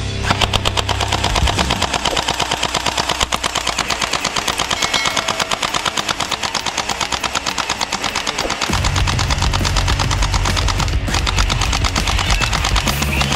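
Toy gel blaster firing full-auto: a long, rapid, even rattle of shots.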